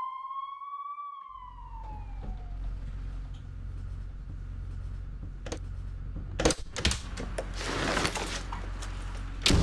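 An ambulance siren wails up and winds down over the first couple of seconds. Then a steady low engine rumble runs under metal clunks and knocks of the ambulance's rear doors being worked, with a loud clunk about six and a half seconds in and another near the end.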